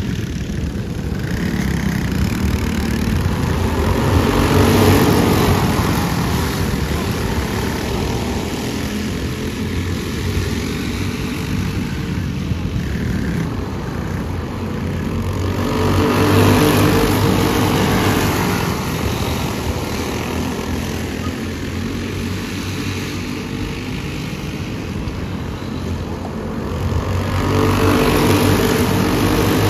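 A pack of racing karts' small engines running at full throttle as they lap, the buzz swelling loud each time the field passes, about every eleven or twelve seconds, and fading as it moves off.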